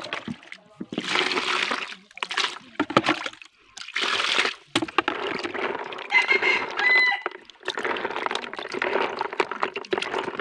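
Water sloshing and splashing in a plastic bucket as a hand stirs and scoops freshwater snails being washed, in uneven bursts with short pauses.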